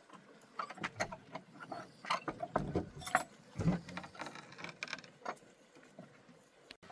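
Irregular series of light clicks and clatters, several a second, that fades out near the end.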